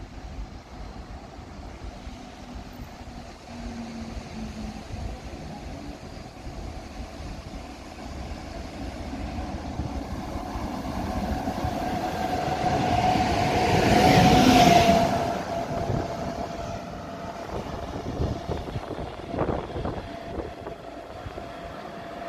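Electric train led by a red locomotive approaching and passing through the station. It grows steadily louder to a peak about fourteen seconds in, then fades as it moves away. A steady high tone sounds underneath throughout.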